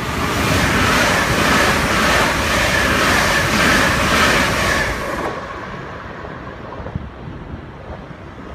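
Two coupled Class 379 electric multiple units running through the station at speed: a loud rush of wheels on rail with a fast, regular beat. The sound drops sharply about five seconds in as the last carriage goes by, then tails off.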